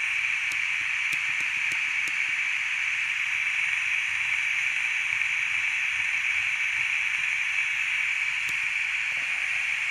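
Steady static hiss from a HackRF One PortaPack receiver in narrowband FM mode, played through a small salvaged laptop speaker: the receiver is tuned where there is no signal, so only noise comes through. A few faint clicks in the first couple of seconds.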